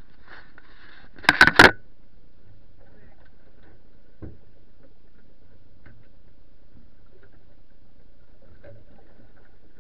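Handling knocks on the camera: three or four sharp knocks in quick succession about a second and a half in as the camera is moved and set down. After that comes a steady faint hum with a few scattered light ticks.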